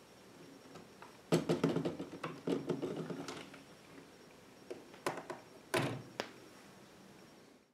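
Plastic LEGO Technic parts clicking and rattling as the magazine of a LEGO sniper rifle model is worked loose and pulled out. A few separate clacks follow as the plastic magazine is put down on a wooden table.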